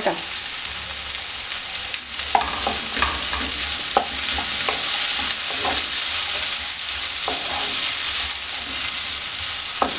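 Breadfruit pieces sizzling in hot oil in a nonstick pan while being stirred with a wooden spatula: a steady sizzle with a few light knocks and scrapes of the spatula against the pan.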